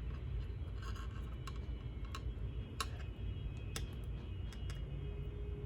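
Small irregular clicks and scratches of a crochet hook and thread being handled while stitches are worked, over a low steady background hum.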